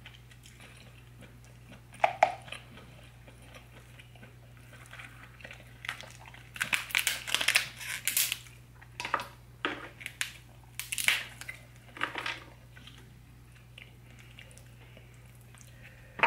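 Shell of a boiled lobster tail crackling and crunching as it is torn open by hand, in irregular bursts, densest about six to eight seconds in and again around eleven to twelve seconds, with a sharp click about two seconds in.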